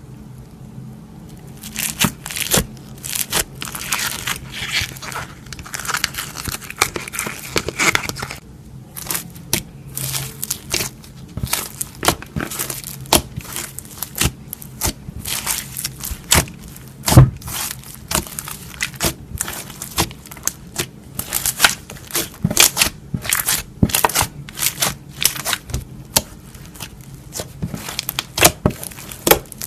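Slime being pressed, squeezed and stretched by hand, giving a run of irregular sharp pops and crackles as trapped air bursts, with the loudest pop about halfway through.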